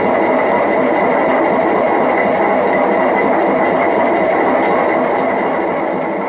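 Homemade electric stone flour mill (chakki) running, its motor turning the millstone through a long V-belt: a steady mechanical whir with a light regular ticking, about two or three a second. The sound fades near the end.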